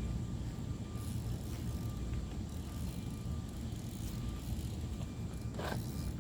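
Steady low outdoor rumble of the kind made by distant traffic or wind on the microphone, with one brief short sound about five and a half seconds in.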